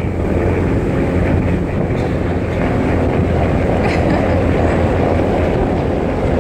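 Helicopter flying overhead: a loud, steady, low rotor and engine rumble.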